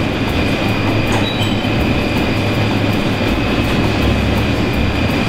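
Steady hum and hiss of supermarket refrigeration, with a faint steady high-pitched tone.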